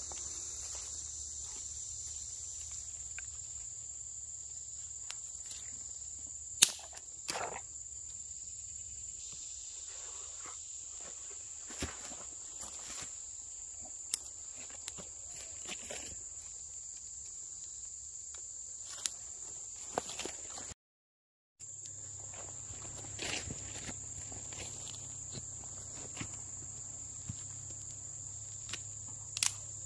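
Insects buzzing steadily at a high pitch, with scattered sharp snaps and cracks from twigs and sticks being handled and laid on a small campfire. The loudest snap comes about six seconds in.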